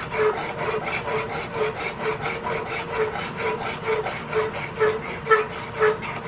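Flat hand file stroking back and forth across the angled face of a steel buckhorn rear sight held in a bench vise, a steady rasping at about two strokes a second as the face is smoothed.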